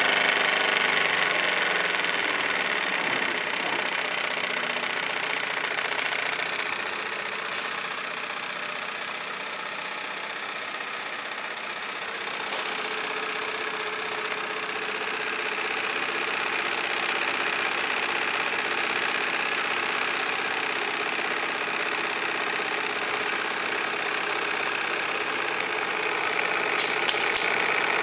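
Wilesco D18 toy steam engine running steadily, a fast continuous chuffing with steam hiss. It softens for a few seconds in the middle, then picks up again.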